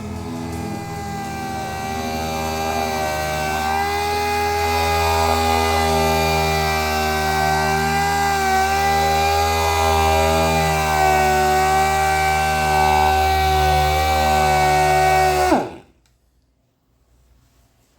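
Electric power tool motor running steadily, its pitch dipping slightly now and then, then cutting off suddenly near the end with a brief drop in pitch.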